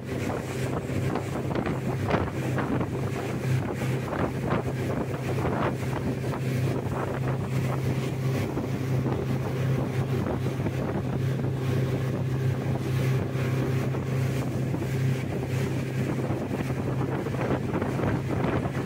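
Motorboat engine running at a steady drone, with wind buffeting the microphone.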